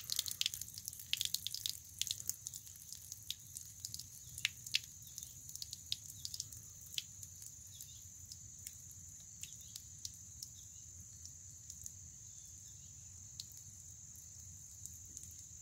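Water draining from a boat hull's open transom drain hole, splashing and dripping onto the pavement below. The drips are quick and frequent at first and thin out to occasional drops after about seven seconds. A steady high-pitched insect chorus runs behind.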